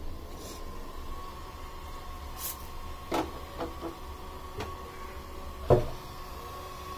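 A few scattered knocks and clanks as the base of a small Ajanta aluminium pressure cooker is handled and set down on a gas stove's burner grate; the loudest knock comes near the end. A faint steady hum runs underneath.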